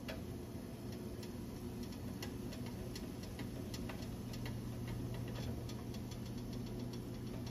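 Sugar syrup boiling hard in a lidded pan, giving irregular small pops and ticks, with a sharper click at the start as the glass lid settles; a steady low hum runs underneath.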